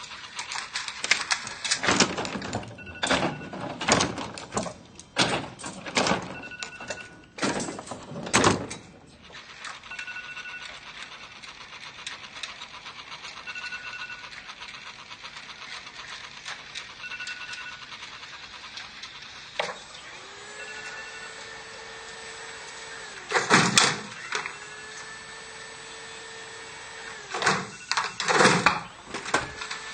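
An electronic alarm going off: a short two-tone beep about every three and a half seconds, over loud bangs and rustling during the first nine seconds. From about twenty seconds in a steady tone sounds, broken by loud noisy bursts near the end.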